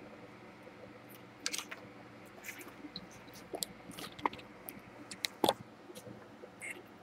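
Scattered light clicks and taps of small parts being handled, irregular, the loudest about five and a half seconds in, over a faint steady hum.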